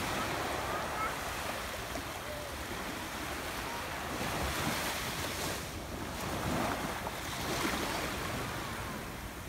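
Small waves lapping and washing up onto a sandy shore, swelling and easing as each one comes in, with wind buffeting the microphone.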